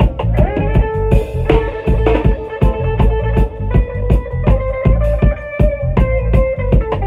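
Live band playing instrumental music: a drum kit keeps a steady beat under guitar.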